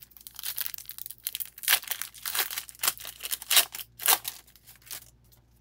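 A foil trading-card pack of O-Pee-Chee Platinum hockey cards being torn open, its wrapper crinkling in a quick, uneven run of crackles that stops about five seconds in.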